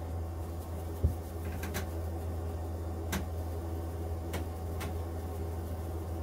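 Spice jar being shaken, giving a few scattered light ticks, with a dull knock about a second in, over a steady low hum.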